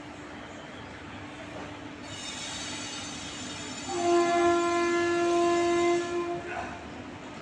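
Train horn sounding one long steady blast of about two and a half seconds, starting about four seconds in, over the noise of a moving train that builds up about two seconds in.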